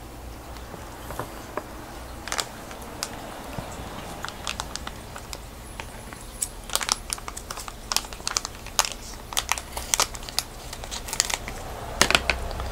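Plastic fish shipping bag crinkling and crackling as it is handled, in irregular sharp crackles that come thicker in the second half.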